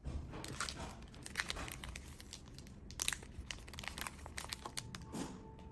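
Plastic packets of fishing jigheads crinkling as they are handled, with irregular crackles and rustles.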